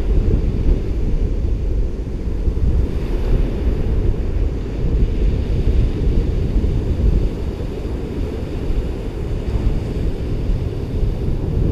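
Ocean surf washing on a beach, heavily overlaid by wind buffeting the microphone, which makes a steady low rumble.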